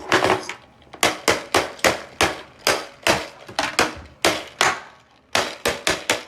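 Small toy hammer repeatedly striking the hard casing of a Secret Crush Minis toy to smash it open. There are about fifteen quick sharp knocks, two to three a second, with a short pause near the middle.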